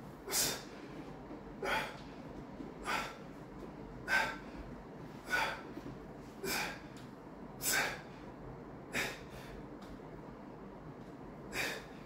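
A man breathing out hard in short, forceful breaths while working a dumbbell through seated overhead triceps extensions, about one breath every 1.2 seconds, nine in all, with a longer pause near the end.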